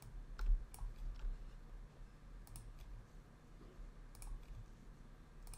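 Several faint computer mouse clicks, spaced irregularly, over a low steady hum.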